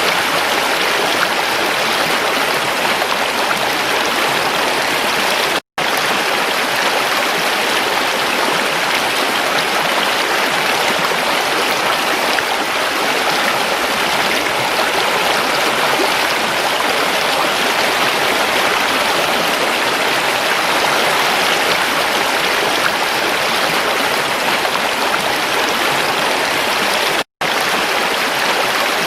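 A creek's running water: a steady, even rush, cut to silence for an instant twice, about six seconds in and near the end.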